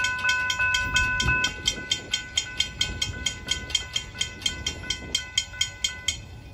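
Railroad crossing warning bells ringing in rapid, even strikes, about five a second, then cutting off suddenly about six seconds in as the gate arms finish rising.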